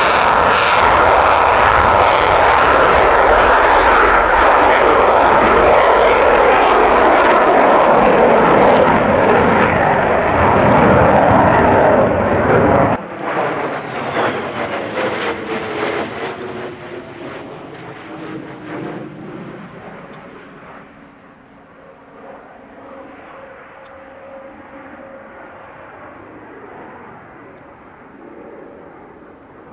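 F-35B Lightning's F135 jet engine running loud and steady for about thirteen seconds. The level then drops suddenly, and a falling whine fades away as the jet moves off.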